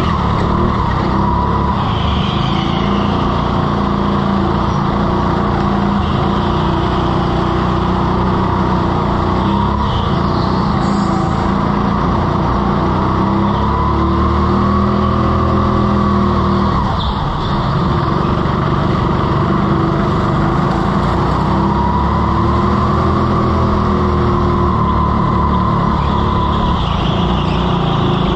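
Go-kart motor running at speed, its pitch rising and falling again and again as the kart accelerates down the straights and slows for the corners.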